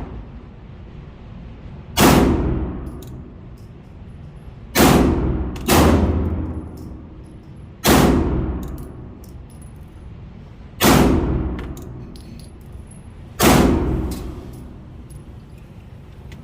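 Glock 47 9mm pistol fired in slow, deliberate single shots: six sharp reports a few seconds apart, two of them close together, each with a ringing tail that dies away over about a second and a half.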